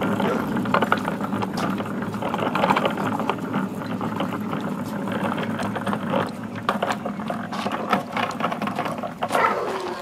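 Small hard wheels under a bookshelf rolling over asphalt: a steady rumbling rattle with many small clicks and knocks.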